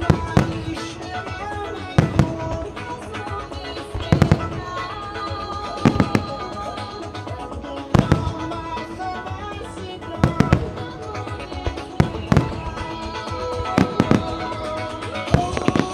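Starmine barrage of aerial firework shells bursting, sharp booms about every two seconds, some in quick clusters, with music playing throughout.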